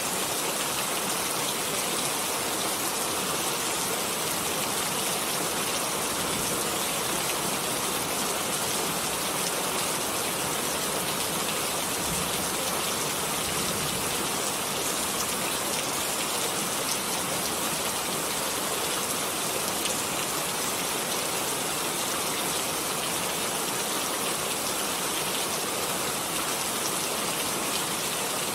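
Steady rain falling, a dense even hiss of many drops with no change in intensity.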